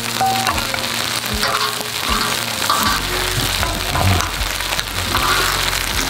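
Fried rice sizzling on a hot cast-iron cauldron-lid griddle (sot-ttukkeong), with a metal spoon scraping and scooping it off the griddle in short clicks.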